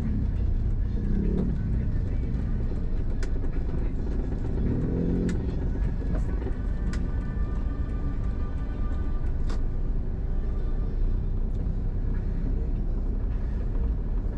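Car driving slowly through town traffic, heard from inside the cabin: a steady low rumble of engine and road noise, with a few light clicks.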